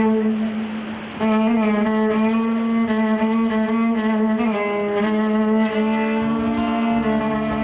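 Fiddle playing a gypsy-style tune in long, held low notes with rich overtones; the playing drops away briefly and comes back in strongly about a second in.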